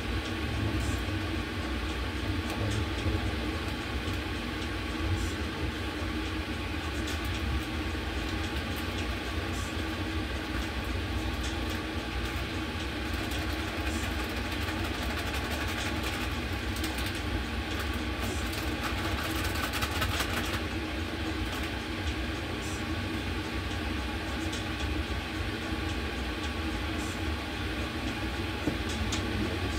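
Steady low rumble and hum of background machinery, with scattered light clicks and a brief hiss about sixteen to twenty seconds in.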